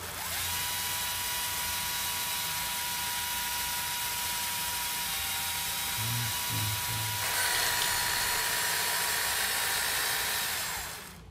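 An electric power tool running with a steady high whine, starting suddenly. About seven seconds in its sound grows harsher, and it stops shortly before the end.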